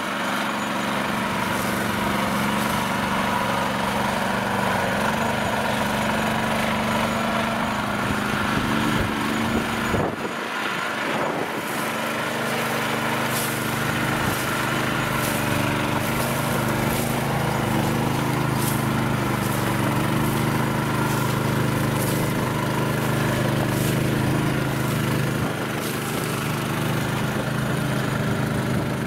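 Small engine of a homemade swamp buggy running steadily as it drives through tall bog grass, its note dropping lower about ten seconds in.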